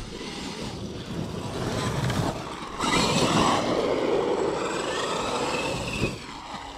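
Large XRT RC truck on 12S brushless power running close by: tyre and ground noise with a faint electric motor whine, building up and loudest from about three seconds in, then easing off near the end.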